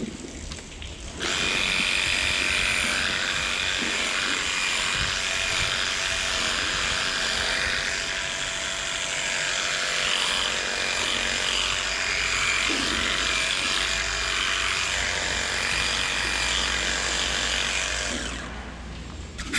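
Handheld electric clippers running steadily while trimming the hair of a cow's tail switch. The motor starts about a second in and cuts off near the end.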